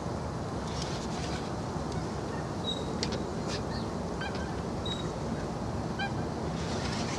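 Steady low rumble of the boat's motor while trolling, with distant geese honking in short calls several times.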